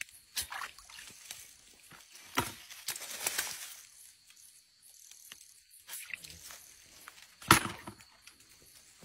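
Eel grabber working in a shallow muddy ditch: scattered splashes and sloshes, rustling of dead leaves and clacks of the toothed metal jaws. Near the end comes the loudest sharp knock, as the eel is dropped into a bucket.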